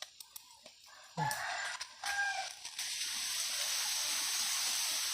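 A few faint taps, then a rooster crowing about a second in, for about a second and a half. A steady hiss follows and runs on from about three seconds in.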